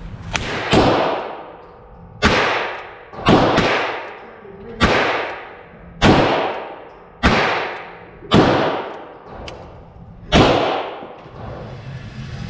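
Ruger single-action .22LR revolver firing about nine shots, spaced roughly a second apart with a quicker pair about three seconds in. Each crack echoes and dies away off the walls of an indoor range. A couple of fainter, sharper cracks fall between them.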